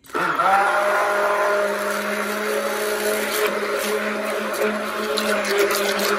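Stick blender switched on with its head submerged in black activated-charcoal cold-process soap batter, running at a steady speed with a constant motor hum and whine. It starts suddenly at the beginning and begins to wind down at the very end.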